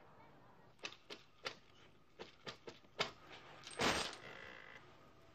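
A sangoma's divining bones and shells clicking against each other as they are handled: a string of sharp, separate clicks, then a louder clatter about four seconds in as they are thrown down.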